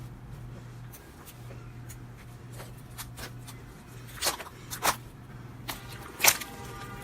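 Slime being squished and poked by hand: scattered small sticky clicks and pops, with a few louder pops about four, five and six seconds in, over a faint steady low hum.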